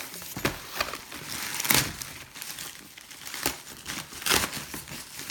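A toolkit bag being handled and opened, crinkling and rustling in irregular bursts, loudest a little under two seconds in and again at about four seconds.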